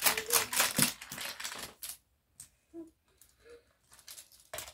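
Wooden toy trains and pieces clattering as they are handled: a dense run of clicks and knocks for about two seconds, then a few scattered knocks near the end.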